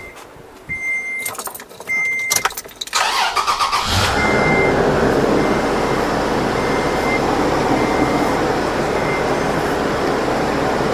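A car chime beeping repeatedly, then the 2007 Toyota FJ Cruiser's 4.0-litre V6 cranks briefly, catches about four seconds in and settles into a steady idle. This is the first start after the power steering pump was replaced and refilled.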